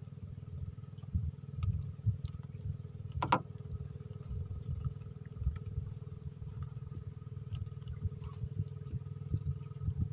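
Steady motor hum under a gusty low rumble of wind on the microphone, with one brief sharp sound about three seconds in.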